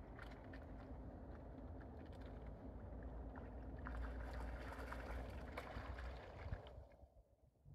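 Low wind rumble on the microphone with small splashes and ticks of water as eider ducks swim and dive. A louder rush of noise builds about four seconds in and falls away abruptly near the end.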